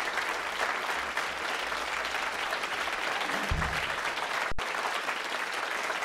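Concert audience applauding, a dense, even patter of many hands clapping. The sound drops out for an instant about four and a half seconds in.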